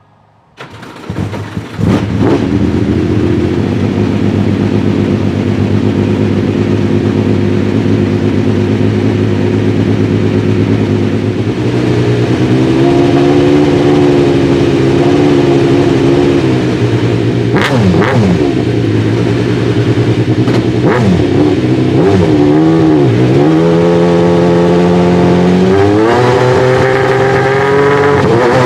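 Alfa Romeo 155 V6 Ti race car's 2.5-litre V6 started on an external battery, catching within about two seconds and then idling loud and steady while warming up. There are a few short throttle blips partway through, and the idle steps up to a higher speed near the end.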